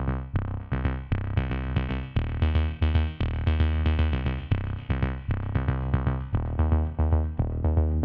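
Background music: electronic track with a drum-machine beat, synthesizer notes and heavy bass.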